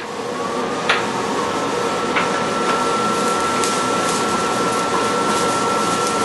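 Kitchen extractor fan rising to speed over the first second, then running with a steady whir and a thin high whine. A few light knocks come from stirring onions in a frying pan.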